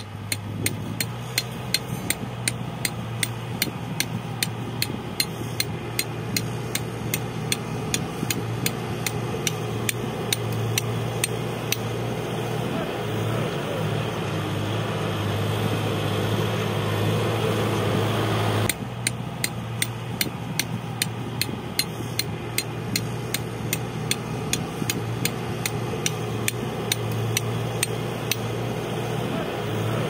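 CASE backhoe loader's diesel engine running with a steady drone, overlaid by sharp regular clicks about twice a second. Past the middle the engine grows louder, then the sound breaks off abruptly and the clicking starts again.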